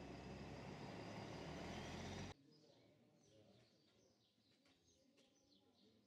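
Faint outdoor background noise, a low steady rumble with a few faint high chirps, that cuts out abruptly to near silence a little over two seconds in.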